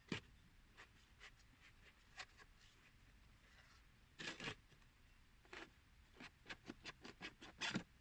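Faint scattered clicks, a short scrape about halfway through, and a quick run of small taps near the end: light handling noises.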